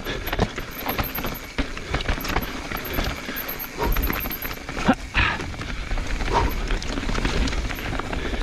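Evil Wreckoning LB mountain bike riding down rock slabs and dirt trail: tyres rolling over rock with a stream of irregular knocks and rattles from the bike over bumps. A low rumble grows louder about four seconds in.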